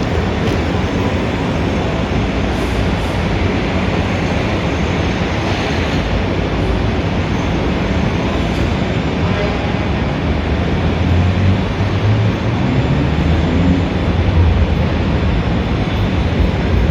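Dense city street traffic: a steady rumble of engines and tyres. An engine note rises in pitch about eleven to fourteen seconds in.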